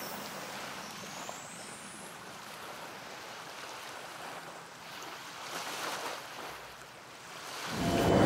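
Soft, steady outdoor rushing ambience with no distinct events, swelling a little for a moment past the middle. Near the end a much louder rushing swell rises quickly.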